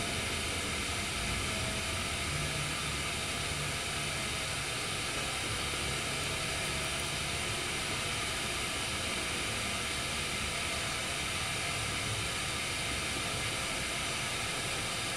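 Canister gas pocket stove burning steadily with an even hiss under a lidded pot of heating water, with a low, uneven rumble of wind underneath.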